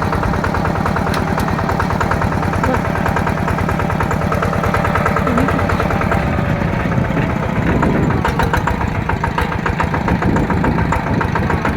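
Yanmar TF120 single-cylinder diesel engine on a two-wheel tractor running steadily, with a fast, even firing beat.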